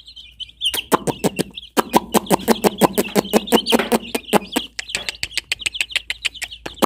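A flock of young chicks peeping continuously in a high chorus. From about a second in, it is joined by rapid sharp clicks, several a second: beaks pecking at food on a concrete floor.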